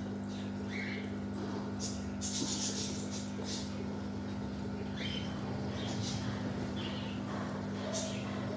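Small birds chirping briefly here and there over a steady low hum.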